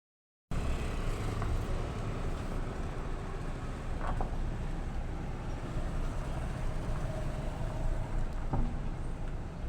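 Steady low rumble of town street noise with vehicle sound, and a couple of faint knocks, after a half-second dropout at the start.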